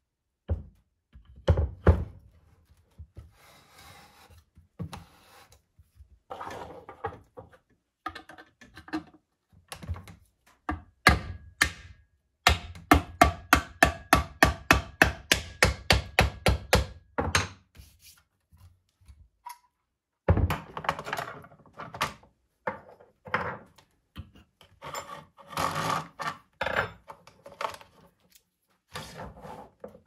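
A small hammer tapping the end pieces of a Park Tool TS-4.2 truing stand into place, with a fast run of about four blows a second midway, among scattered single knocks and the rubbing and clatter of the steel parts being handled.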